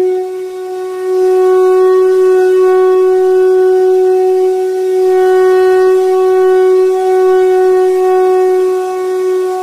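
Background music: a single steady drone note with overtones, held without a break and swelling gently in loudness every few seconds.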